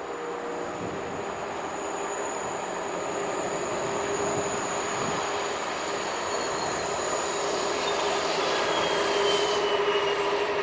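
Two BB 67400 diesel locomotives with Pielstick engines hauling Corail coaches, their engine drone growing steadily louder as the train approaches, with a thin high wheel squeal over it.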